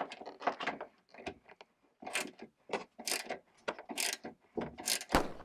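Hand socket ratchet clicking in short, irregular runs as a bolt is wound into the door's window-frame rail.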